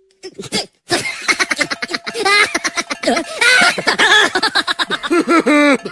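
High-pitched, sped-up voice laughing and chattering in quick repeated syllables, quickening into a fast run of 'ha-ha' bursts near the end.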